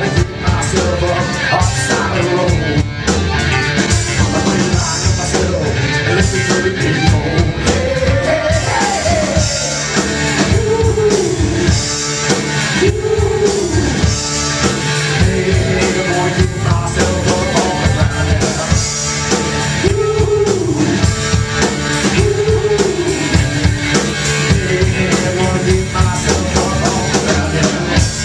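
Live rock band playing, with drum kit, electric bass and electric guitar; a lead line repeats a phrase of notes that rise and fall.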